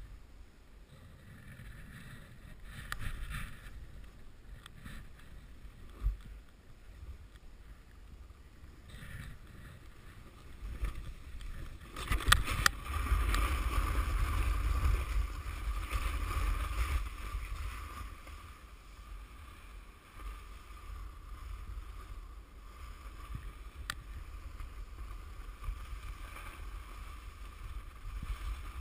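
A snowboard sliding and carving over snow, the base and edges hissing and scraping, heard through a helmet or chest camera with a low rumble. About twelve seconds in it grows louder for several seconds, with a few sharp scrapes or knocks.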